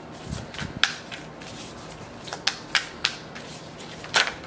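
A deck of tarot cards being shuffled by hand, making an irregular string of sharp card snaps and taps.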